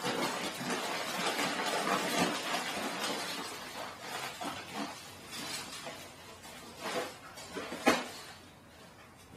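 A large dog food bag being torn open and handled, a dense crinkling and rustling of the bag, louder in the first half and tapering off, with one sharp crackle near the end.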